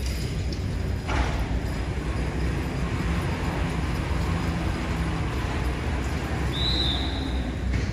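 A team of draft horses pulling a weighted pulling machine across the dirt arena floor: a steady low rumble with hoof steps, growing louder about a second in. A brief high squeal comes near the end.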